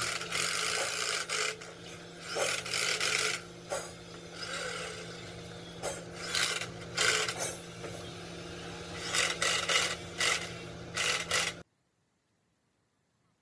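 Irregular rasping strokes of a hand tool scraping or filing metal, over a steady low hum. The sound cuts off near the end.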